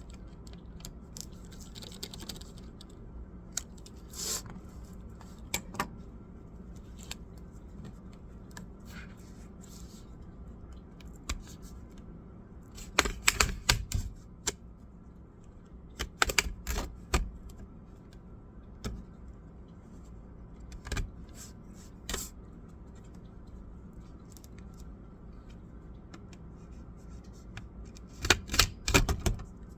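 Irregular clicks and taps of hands handling a Dell laptop's plastic and metal parts during disassembly, with the loudest clusters about halfway through and near the end, over a steady low hum.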